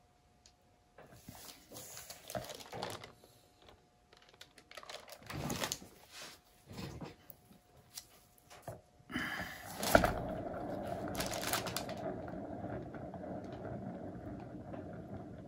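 Rustling handling noises from gloved hands and plastic. About ten seconds in, a sharp knock as a paint-covered canvas on a round turntable is pushed into a spin. Then the turntable whirs steadily while it spins the paint out.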